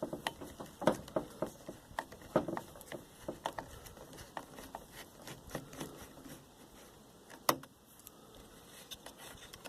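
Irregular small clicks, taps and rattles of a hand tool with an Allen bit working a bolt out of a string trimmer's plastic housing, with a sharp click about seven and a half seconds in.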